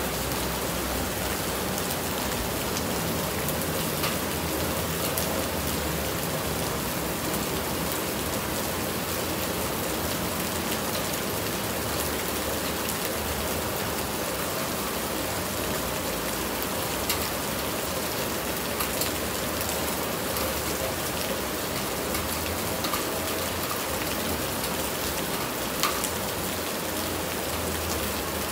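Steady rain falling: a dense, even hiss of drops, with a few sharper, closer drop hits standing out now and then.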